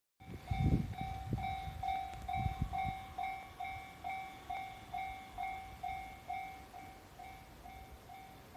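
Japanese railway level-crossing warning bell ringing, a repeated electronic clang a little over twice a second, signalling an approaching train. Low thumps and rumble sound under it in the first few seconds, and the bell grows slightly fainter toward the end.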